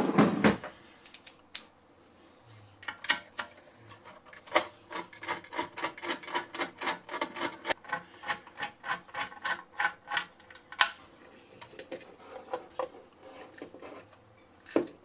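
A hand tool clicking and scraping against the metal chassis of a vintage valve radio: a clunk at the start, then a run of light, sharp clicks, about three a second, through the middle, with rubbing in between.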